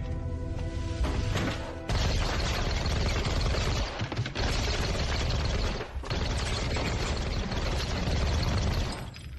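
Action-film soundtrack: tense music with held notes, then about two seconds in a sudden loud, dense wash of music and crashing noise, with brief drop-outs near four and six seconds in.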